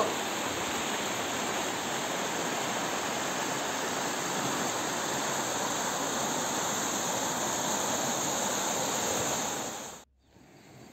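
Rushing floodwater churning out of a lake outlet into a canal, a steady hiss of white water that fades out about ten seconds in.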